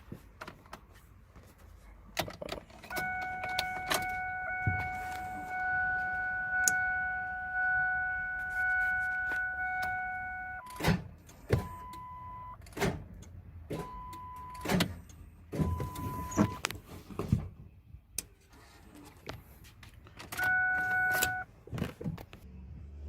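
Cab of a 2000 Ford F-350 with a 7.3 Power Stroke diesel at key-on: a steady dashboard warning chime, then short repeating beeps and another brief chime, with scattered sharp clicks and clunks. There is no cranking: the engine is stuck and does not turn over after overheating with water in the oil.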